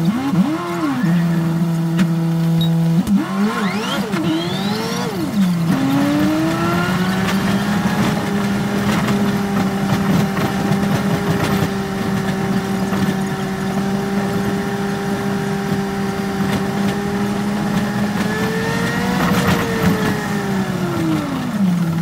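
Yutong ZK6831HGA city bus engine and drivetrain heard from the driver's seat while driving. The engine note climbs and drops several times in quick succession a few seconds in, then rises smoothly and holds a steady pitch at speed, falling away again near the end.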